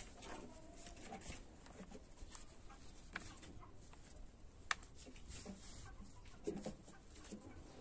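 Quiet handling sounds: a paper template is shifted on cloth and traced with a pencil, with a sharp click a little past halfway. Faint clucking in the background.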